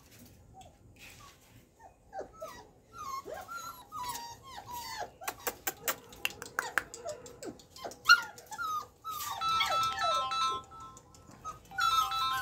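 Labrador puppies in a wire cage whimpering and yelping in many short, high-pitched cries that bend and fall in pitch. The cries start about two seconds in and come thick and overlapping, with sharp clicks among them midway.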